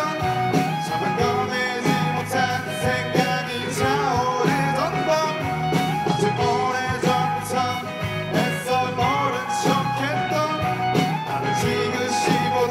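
Rock band playing live: two electric guitars, bass guitar and drum kit, with a melody line that bends in pitch over the steady beat.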